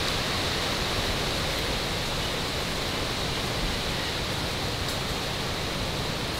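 A steady, even hiss with a faint high-pitched band in it and no distinct events.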